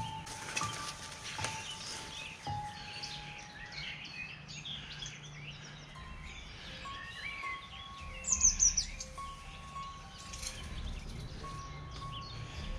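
Songbirds singing and calling in dense vegetation, with a quick run of loud, sharp falling chirps a little past two-thirds of the way through.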